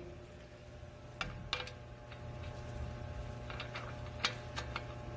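A few light, scattered clicks and taps from a gloved hand working at an alloy road wheel, over a faint steady hum.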